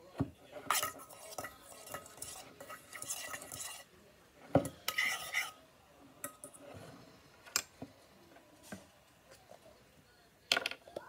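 A small fork stirring slime in a stainless steel pot, scraping and clinking against the metal. The scraping is thickest in the first few seconds, then comes as scattered clinks, with a sharp click near the end.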